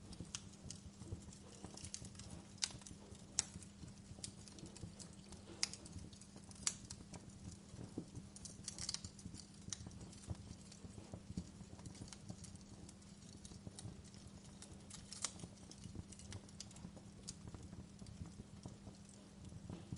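Wood fire crackling in a fireplace: irregular sharp pops and snaps, a handful of them louder, over a steady low rumble.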